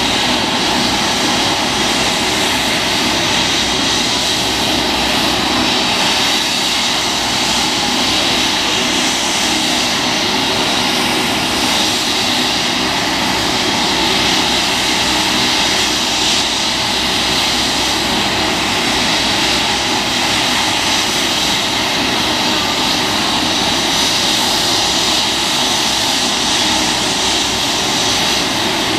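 Rescue helicopter's turbine engine and rotor running loud and steady, a high whine over a rushing noise that stays level throughout.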